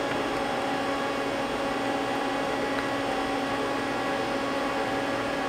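Steady machine hum with a constant low tone and a few higher ones: a powered-up CNC lathe with its fans running in the shop.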